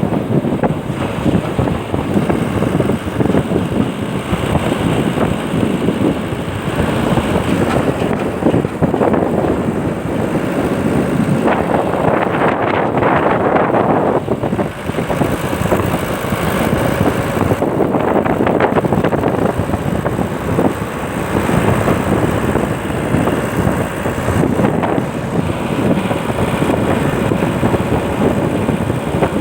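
Wind buffeting the microphone of a moving car, a loud rough rush that swells and eases every few seconds, with the car's engine and road noise running underneath.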